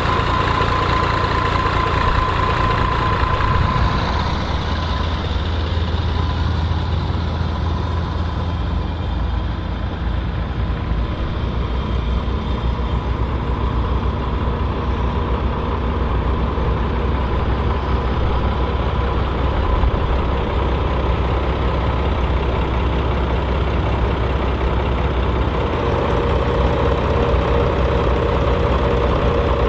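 Volvo BM 814 tractor's engine running steadily under load while pulling a six-furrow plough through the field. A thin whine stands out over the drone at first and fades within a few seconds, and a new steady tone comes in near the end.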